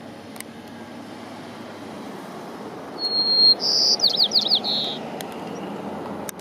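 A bird's high chirping call for about two seconds in the middle: a short held note, then a quick run of falling chirps. It sits over a steady low outdoor rumble.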